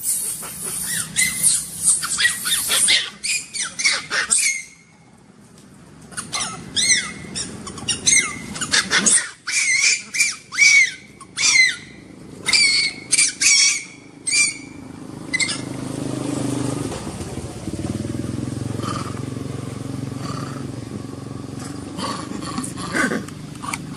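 Baby long-tailed macaque screaming in distress while an adult grips its tail: rapid runs of shrill, high-pitched screams, a short break about five seconds in, then more screaming. In the last third the screams give way to a steady low hum with only faint calls.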